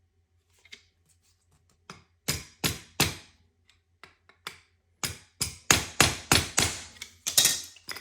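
Hammer blows on metal parts while seating a fuel injector in its fuel rail. Three sharp blows come about two seconds in, then a quicker run of about seven louder ones from about five seconds in.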